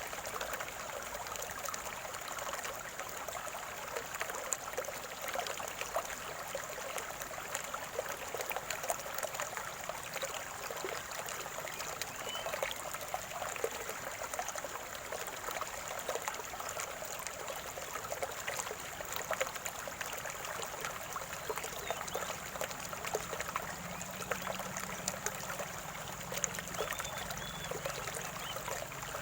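Shallow stream of water trickling and gurgling steadily, with a constant dense patter of small splashes.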